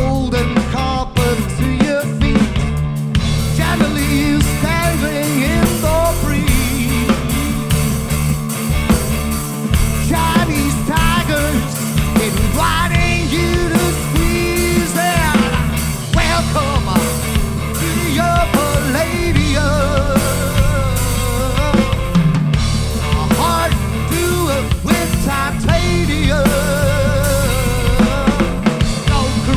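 Live rock band playing a passage of the song: drum kit keeping a steady beat over bass, with wavering guitar lines.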